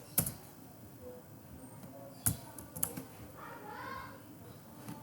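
A few separate keystrokes on a computer keyboard, sharp single clicks spread out with pauses between them, as code is typed slowly.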